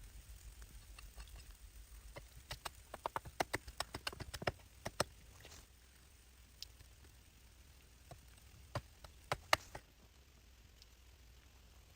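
A quick irregular series of sharp taps and knocks about two seconds in, lasting a few seconds, then a few more single knocks near the end, over a low steady rumble.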